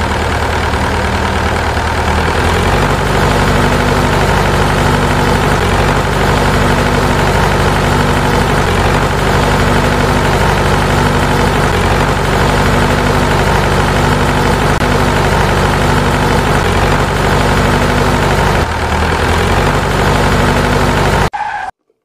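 Tractor engine running steadily. Its note steps up a little a couple of seconds in, pulses evenly about once a second, settles back down near the end, then cuts off abruptly.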